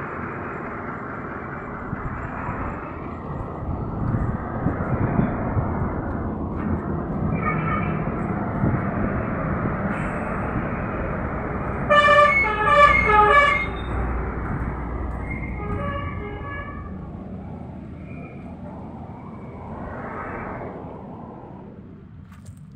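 Road traffic rumbling past with vehicle horns honking: the loudest is a horn sounding three short blasts about halfway through, with fainter honks before and after. The traffic noise fades near the end.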